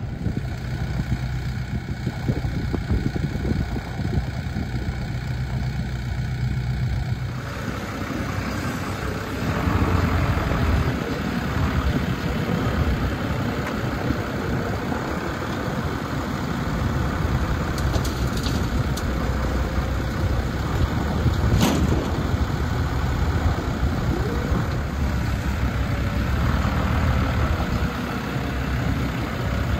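Tractor engine running steadily, heard from the driver's seat while it pulls a ridging cultivator through a crop of peas. About seven seconds in the sound changes to a front-loader tractor's engine working close by, with one sharp knock about twenty-two seconds in.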